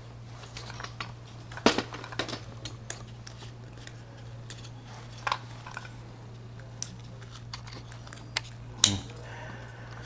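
Scattered clicks and taps of a coax F connector and a plastic keystone wall plate being handled and fitted together, two of them sharper than the rest, over a steady low hum.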